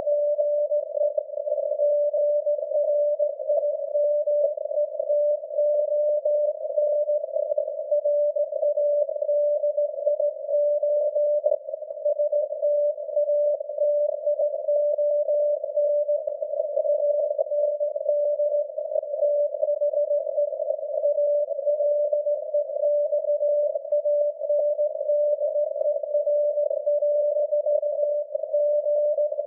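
Steady CW beat-note tone of the SAQ Grimeton Alexanderson alternator's 17.2 kHz VLF carrier, heard through a radio receiver's narrow CW filter and half-buried in hissing, crackling static from high atmospheric noise.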